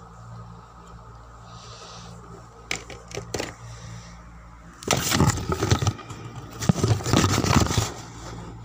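Handling noise close to the microphone: two sharp clicks, then two spells of loud rubbing and scraping as the recording device is moved about, over a steady low hum.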